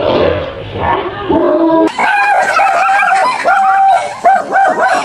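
Dog barking, rough and noisy at first, then from about two seconds in a quick run of high, yelping barks, about three a second.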